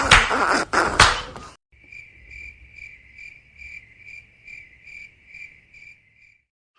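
A loud, noisy sound effect lasting about a second and a half, then the cricket-chirping meme sound effect: even chirps a little over two a second for about four and a half seconds, stopping near the end.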